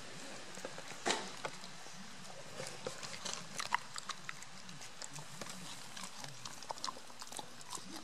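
A puppy gnawing on a rawhide chew: irregular clicks and crunches, the loudest about a second in.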